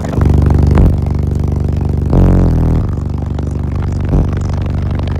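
Extreme car-audio bass from twelve Sundown NSV3 15-inch subwoofers in a fourth-order enclosure, playing a song at full power inside the vehicle. Deep bass notes heavily overload the microphone, and the notes change about two seconds in.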